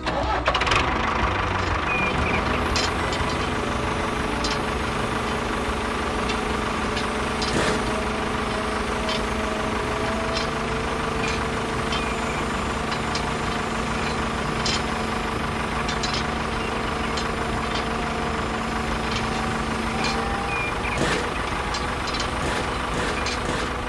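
Small electric motors of a model tractor and its crane arm running steadily, with a whine that shifts pitch a little and scattered clicks from the gears and grab.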